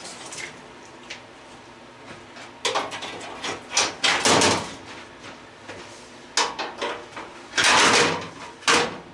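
Clanks, knocks and scraping of sheet metal and parts being worked loose while an old gas stove is torn down for scrap. Several sharp knocks, with two longer scraping stretches about four and eight seconds in.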